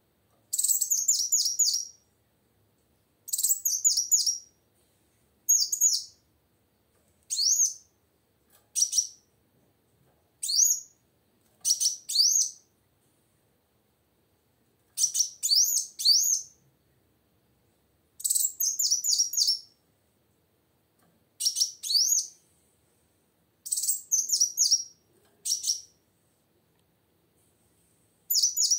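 Female kolibri wulung sunbird singing: about a dozen short bursts of rapid, high twittering chirps, each up to about two seconds long, with brief pauses between them.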